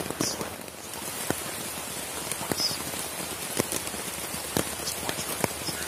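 Rain falling steadily on a tarp shelter overhead, with separate louder drops striking close by about once a second.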